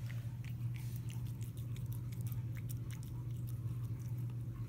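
A cat eating wet canned cat food from a glass bowl: quick, irregular wet chewing and small clicks, over a steady low hum.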